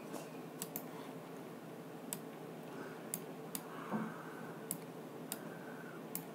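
Computer mouse clicking, about eight faint single clicks spaced irregularly over low room hiss.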